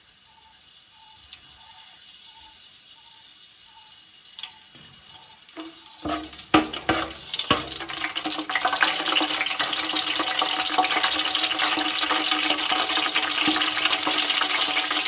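Whole spices (cinnamon, star anise, cardamom, cloves, bay leaves) frying in hot ghee and coconut oil in a large aluminium pot. A faint hiss builds slowly at first, a metal ladle knocks against the pot a few times around the middle, then the oil sizzles loudly and steadily.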